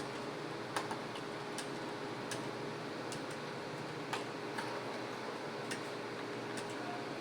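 Computer keyboard keys being typed: irregular light clicks, roughly two a second, over a steady background hum.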